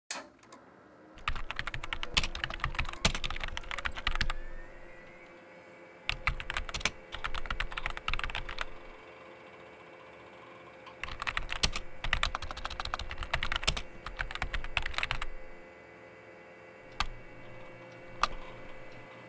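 Keys of a vintage Compaq computer keyboard clacking in three bursts of fast typing, then two single keystrokes near the end, over a faint steady hum.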